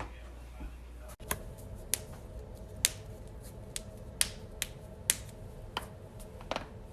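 Joints cracking: a string of sharp pops, one every half second to a second, beginning about a second in.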